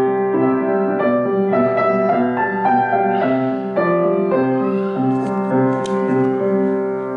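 Kawai upright piano played from sheet music: a calm piece with a repeating low accompaniment under a melody.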